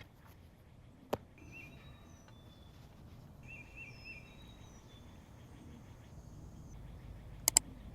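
Forest birds calling quietly with short high whistles and trills. There is a single sharp knock about a second in and two more near the end.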